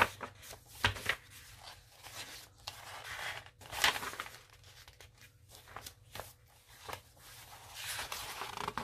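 Paper pages of a handmade junk journal being turned and handled: irregular rustling and rubbing of paper, with a louder crisp rustle just before four seconds in.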